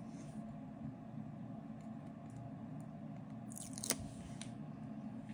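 Faint handling of a thin mirror plate as the backing paper is peeled from its 3M adhesive tape: light rustling, with a short crackle and a sharp click a little under four seconds in, over a steady low hum.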